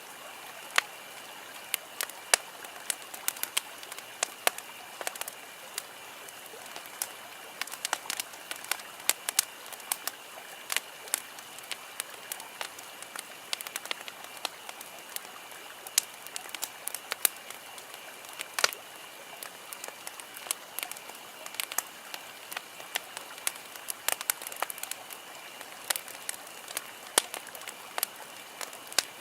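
Wood campfire crackling: irregular sharp pops and snaps, some louder than others, over a steady hiss of burning wood.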